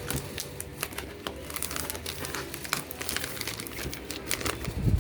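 Packaging crinkling and crackling in irregular bursts as a new circular saw's box is unpacked, with a low thump near the end.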